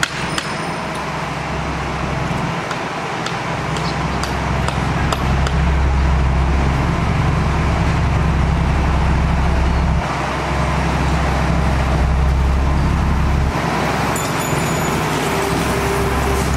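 Diesel engine of heavy road-construction machinery running close by, a steady low drone that grows louder over the first few seconds and dips briefly twice in the second half.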